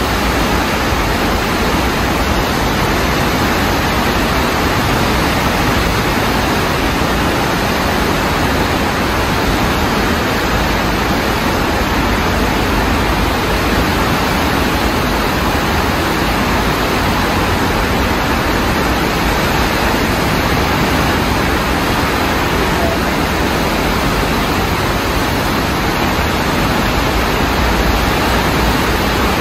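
Fast-flowing floodwater from heavy rain rushing past in a steady, loud, unbroken rush of water.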